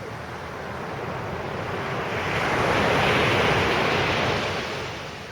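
A sea wave breaking and washing up the beach, its surf swelling to a peak about three seconds in and then dying away.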